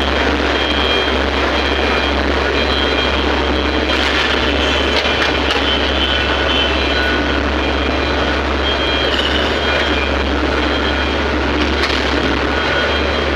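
Heavy diesel engine of an excavator running steadily, with a few faint clicks and knocks.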